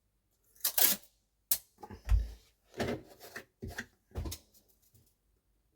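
Masking tape being pulled off the roll and torn, in a series of short, sharp rips, with handling clicks and one deep thump about two seconds in.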